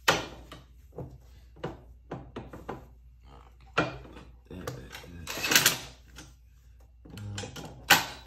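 Irregular knocks, clicks and clunks of a cordless drill and seat-mounting hardware being worked against a Can-Am Ryker's seat frame and plastic body panels. There is a short noisy burst about five and a half seconds in, a low thump a little after seven seconds, and a sharp knock near the end.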